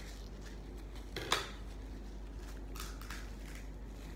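Spiky king crab leg shell being cracked open while eating, with one sharp crack about a second in and a few smaller cracks and clicks later.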